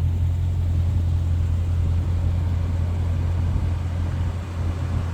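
HSV Clubsport R8's 5.7-litre LS1 V8 idling steadily, a constant low engine note.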